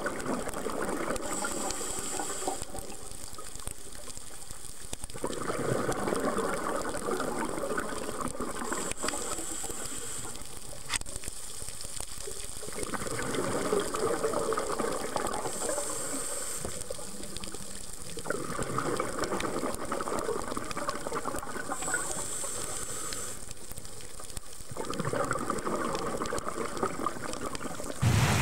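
Scuba diver's regulator breathing underwater: a short high hiss on each inhale, then a few seconds of bubbling exhaust on each exhale. This repeats about four times, roughly every six to seven seconds.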